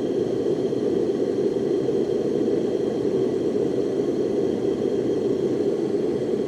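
Bauer 30,000–60,000 BTU forced-air propane heater running just after lighting, its fan and burner flame giving a loud, steady noise.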